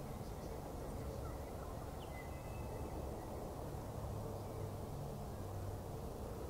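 Steady low outdoor background rumble with a faint hum, and a few faint, short, high bird calls about two seconds in.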